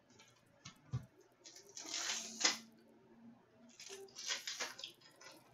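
Trading cards being handled: cards sliding and rustling against each other in two bursts, with a soft knock about a second in.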